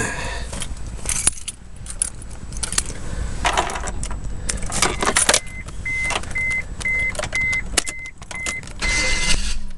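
Keys jangling and clicking as the ignition key of a 1998 Mazda MPV is handled and turned. Partway through, a high-pitched warning chime starts beeping steadily, about twice a second.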